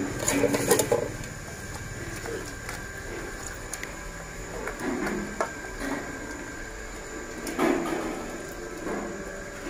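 Hands squishing and rubbing a wet marinade into a raw whole chicken in a stainless steel basin: a few short, irregular wet handling sounds, loudest about half a second in and near the end, over a faint steady whine.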